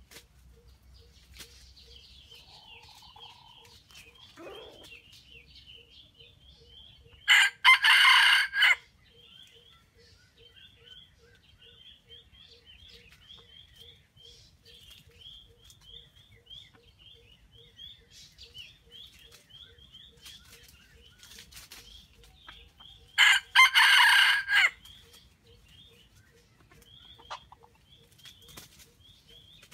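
Wild junglefowl rooster crowing twice, each crow loud and about a second and a half long, a short first note then a longer drawn-out one, the first about seven seconds in and the second about twenty-three seconds in. A steady high chirping trill and a faint regular ticking run underneath.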